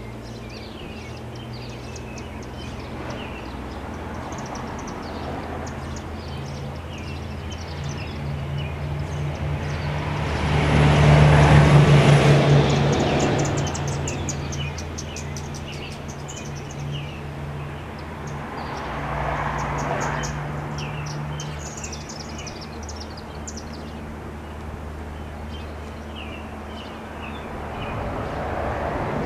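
Federal Signal STL-10 siren winding down long after its blast, a low steady hum from its slowly coasting rotor. Vehicles pass, loudest about eleven seconds in, and birds chirp.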